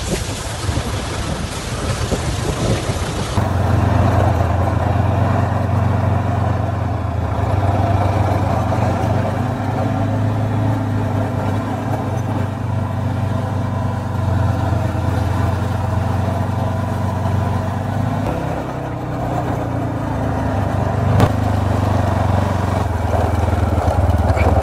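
Wind and rain noise on the microphone for the first few seconds, then a 250cc adventure motorcycle's engine running at steady low revs, its note shifting about three-quarters of the way through.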